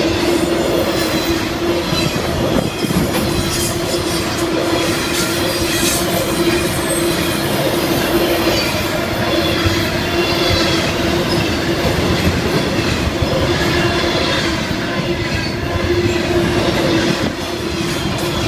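Florida East Coast Railway freight train rolling past, its cars clattering over the rails, with a steady tone running through it.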